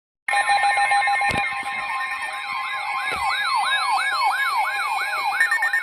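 Emergency alert tones made of steady alarm tones layered under many overlapping wailing siren sweeps, rising and falling about twice a second, starting abruptly. Near the end a fast-pulsing beep joins in.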